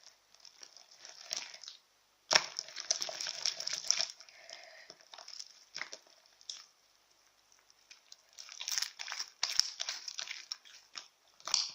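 Homemade slime being kneaded and stretched by hand just after extra glue was mixed in: spells of sticky crackling and clicking, a dense one about two seconds in and another in the last third.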